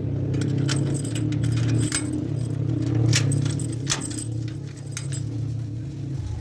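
Metallic jingling and clicking, like keys or small metal parts handled against a lock, over a steady low hum.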